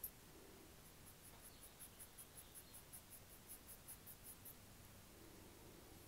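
White chalk in a brass porte-crayon scratching on toned paper in quick hatching strokes, about five a second, from about a second in until past the middle, all faint. A light tap is heard right at the start.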